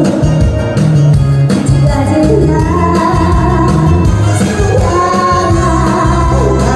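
A woman singing a Korean trot song into a microphone over a loud backing track with a steady beat.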